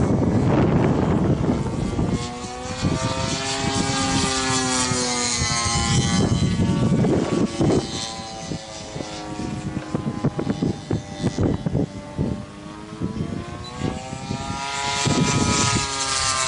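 DLE 55cc single-cylinder two-stroke gasoline engine of an RC aerobatic plane, turning a 23x8 wooden propeller in flight. Its pitch swings up and back down as the plane manoeuvres and passes, twice.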